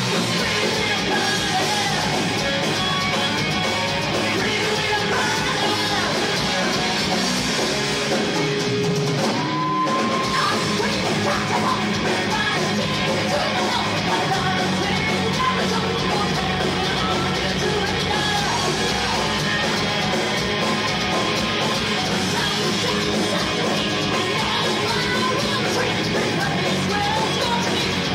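A live heavy metal band playing loud and continuous: distorted electric guitars and drums under a singer's vocals.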